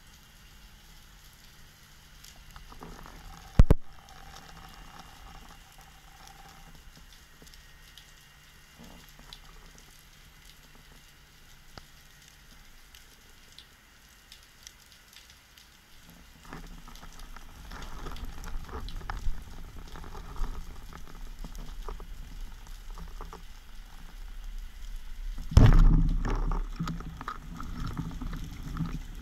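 Underwater ambience picked up by a speargun-mounted camera: a faint, fine, steady crackle, with one sharp click a few seconds in. From about halfway a low rush of water past the camera swells as the diver moves, with a loud sudden thump about three seconds before the end.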